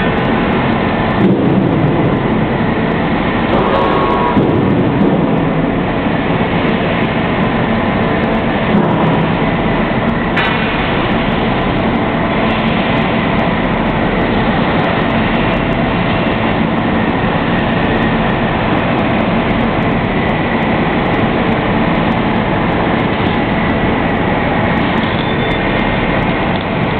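Electric arc welding: a steady, unbroken crackling hiss with scattered sharper clicks.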